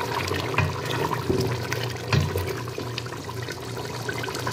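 Thick mutton curry gravy bubbling and spluttering in a steel pot over high heat, with irregular pops and a wooden spatula stirring through it, over a steady low hum. It is being fried down (bhuna) until the oil rises to the top.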